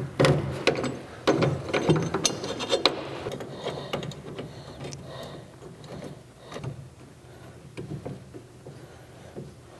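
A metal cargo-bag mounting bracket and its clamps clicking and scraping as they are slid onto a pickup's bed rail and fitted by hand. A quick run of knocks comes in the first three seconds, then fewer, lighter clicks.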